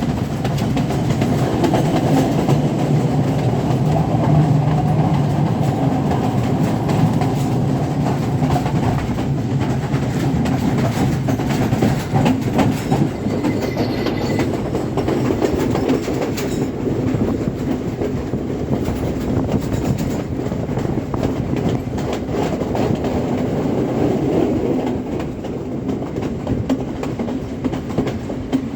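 Passenger train running steadily on the rails, its wheels clattering over the rail joints in a continuous clickety-clack, with a brief faint squeal about halfway.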